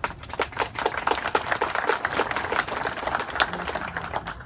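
Audience applauding: a dense, irregular patter of many hands clapping that starts suddenly and stops as suddenly.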